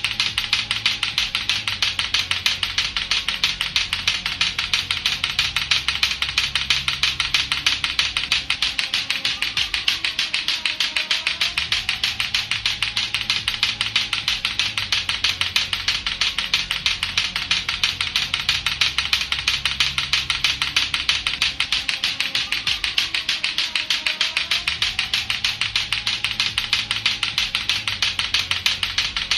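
Lato-lato clackers, two hard balls on a string, knocking together in a fast, steady, unbroken clacking rhythm.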